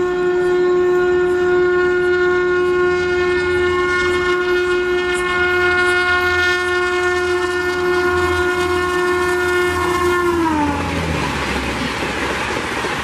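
WAP5 electric locomotive's horn sounded in one long steady blast as the train approaches at around 160 km/h. About ten and a half seconds in, the horn's pitch drops sharply as the locomotive passes and the horn ends, giving way to the loud rush of the coaches speeding past.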